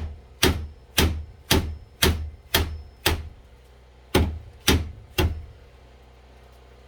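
Ten sharp, hard knocks about two a second, with a short pause after the seventh, as frozen water in a drink container is banged to break up the ice.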